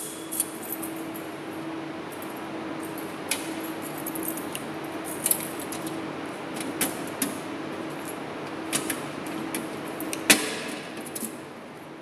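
A bunch of keys jangling and clinking against the metal fire alarm control panel in scattered light clinks, with one sharper metallic clack about ten seconds in. A faint steady hum runs underneath.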